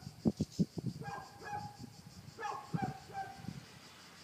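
An animal calling in short, repeated, high-pitched yelps, in two bunches about a second apart. A few low thumps from wind or handling on the microphone, the loudest sounds here, come near the start and again just before the calls stop.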